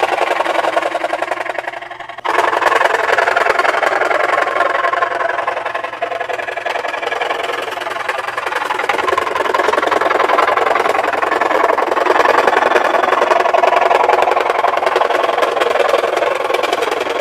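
SKIL 16-inch variable-speed scroll saw running, its blade stroking rapidly up and down as it cuts through a thin plywood sheet. The steady, fast-pulsing saw sound dips briefly about two seconds in, then runs on evenly.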